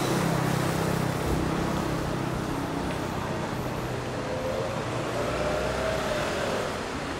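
City street traffic with a city bus engine droning close by, loudest at the start. A faint whine rises and falls in the second half.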